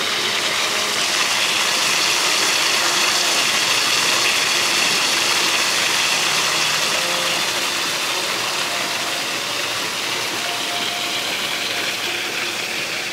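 Water gushing steadily from a jet nozzle into a partly filled hot tub, a continuous rushing splash that eases slightly in the second half.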